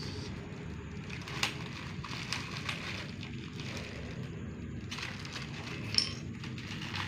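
Plastic vacuum-pack bags being handled, with scattered crinkles and light clicks, the sharpest about six seconds in, over a steady low background hum.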